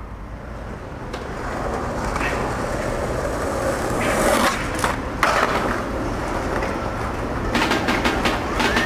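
Skateboard wheels rolling on concrete, with a few sharp clacks of the board striking around the middle and a rapid run of clicks near the end.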